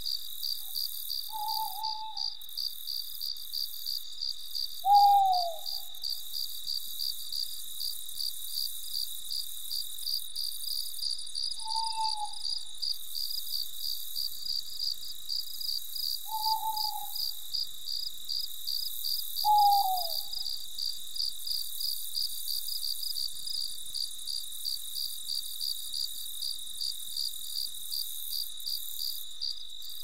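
Crickets chirping in a rapid, even pulse, with an owl giving five single short hoots. The hoots about five seconds in and near twenty seconds are the loudest and slide down in pitch.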